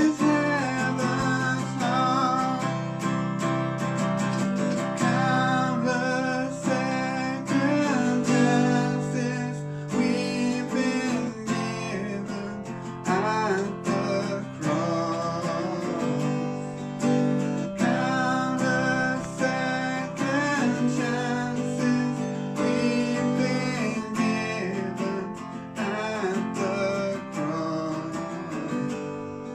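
Music led by a strummed acoustic guitar, with a melody line over the chords.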